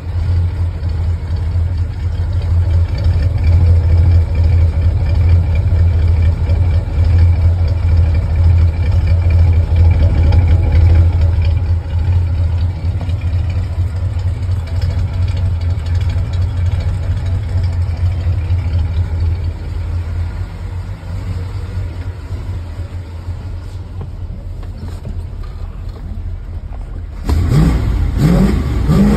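Chevrolet Chevelle's 350 small-block V8 idling with a steady low exhaust rumble, heard close at the tailpipes. Near the end the engine is revved a couple of times, the pitch rising and falling.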